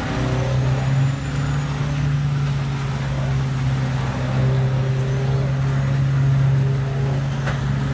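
Precision Husky Progrind 5100 tub grinder running under load, grinding brush, its CAT 3412E V12 diesel giving a steady low drone, mixed with a tracked loader's engine working alongside. There is one short knock near the end.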